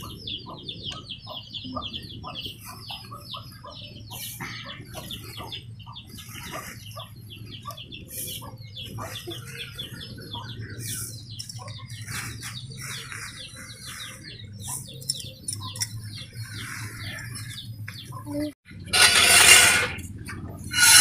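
Birds peeping: a steady run of short, high, falling calls, several a second, that thin out about halfway through. A loud rushing noise comes in near the end.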